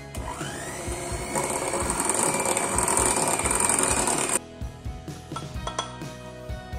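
Electric hand mixer switched on, its whine rising as the motor spins up, growing louder about a second in as the beaters work through thick cake batter, then cutting off suddenly about four seconds in. Background music plays throughout.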